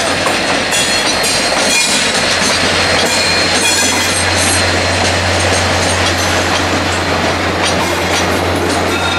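VIA Rail F40PH-2 diesel-electric locomotive rolling past slowly with a steady low engine drone, followed by its LRC passenger coaches. Wheels squeal on the curved station trackwork, with intermittent clicking of wheels over rail joints and switches.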